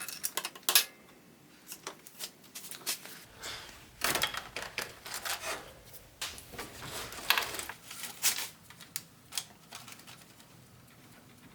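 Irregular clicks and light metal clinks of a wrench and hands working at the oil pressure sensor on the back of an M54 engine's oil filter housing while it is unplugged and unscrewed, with small clusters of quick clicks about four seconds in and again about seven seconds in.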